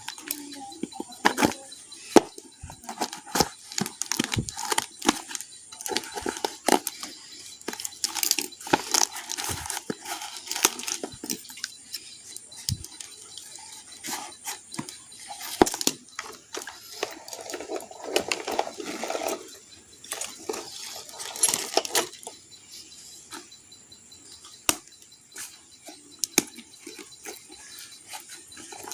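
Hands unwrapping and handling packaging: rustling stretches mixed with many small clicks and taps.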